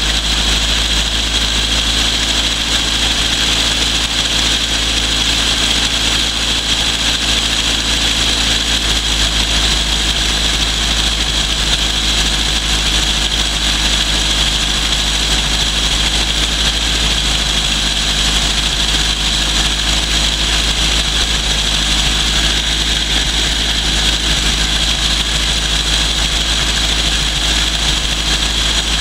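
Toyota 20R 2.2-litre four-cylinder engine idling steadily, with the air cleaner off the carburetor.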